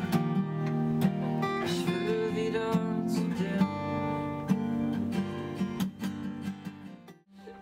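Acoustic guitar played with a pick in an instrumental passage, steady strummed and picked chords with no voice. The playing breaks off briefly near the end.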